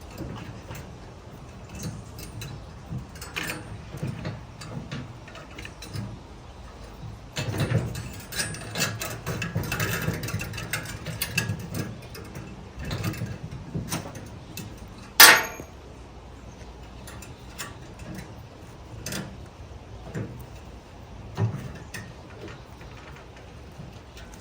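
Doubled steel tie wire being twisted tight with a nail, giving irregular scraping and clicking of metal on metal, busiest in the first half. About fifteen seconds in there is a single sharp metallic ping with a short ring.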